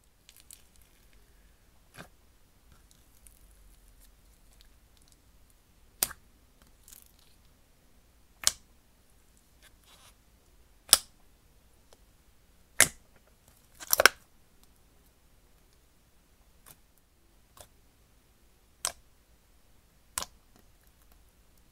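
Thick slime with foam beads being pressed and stretched by hand, giving about ten sharp pops at irregular intervals, the loudest near the middle, with near quiet between them.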